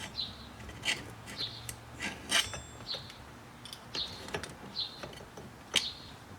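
Steering column lock plate and cancel cam being worked off the column by hand: light, irregular metal clicks and scrapes, with a sharper click about two and a half seconds in and another near the end.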